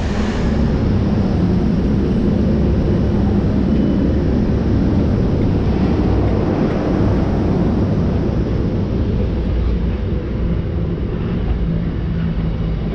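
Two British Rail Class 90 electric locomotives, coupled together, haul a container freight train past at close range: a loud, steady rumble of wheels on rail with a steady hum from the locomotives.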